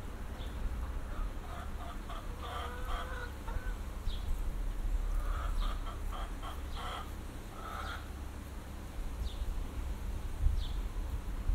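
Chickens clucking in two bouts of short calls, the first about a second in and the second around the middle, with a few small bird chirps in between.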